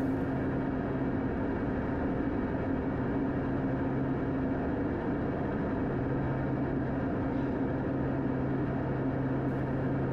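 Steady drone of a Beechcraft King Air 200's twin PT6A turboprop engines and propellers heard inside the cockpit on final approach, props set full forward, with a low hum fading in and out.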